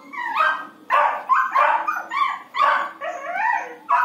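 A puppy yelping and yapping in a quick run of short, high-pitched calls, about two to three a second.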